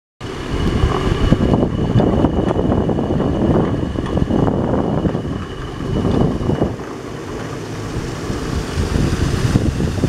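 Rushing of a swollen, muddy river in flood, mixed with wind buffeting the microphone. A thin, steady high tone sounds faintly until about two-thirds of the way through.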